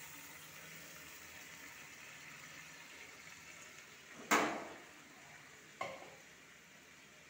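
Water poured into a hot kadhai of vegetable curry, which gives a faint steady sizzling hiss. About four seconds in comes a sharp metallic clank of a utensil being put down, and a lighter knock about a second and a half later.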